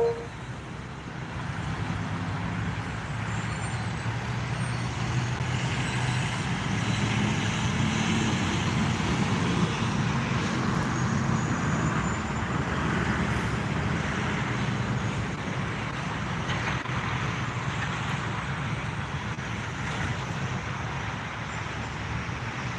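Jet aircraft taking off: a steady engine rumble and roar that swells over the first couple of seconds, is loudest about halfway through, then slowly fades.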